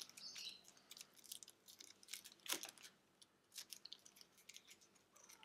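Faint rustling and scattered small clicks of drone accessories (charger and cables) and their packaging being handled, with one sharper click about two and a half seconds in.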